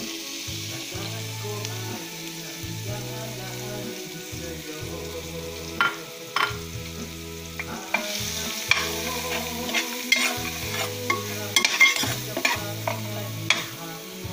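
Chopped vegetables frying in oil in a stainless-steel pan, with a steady sizzle, and a utensil stirring and scraping against the metal. The scrapes and clicks start about six seconds in and come thicker in the second half.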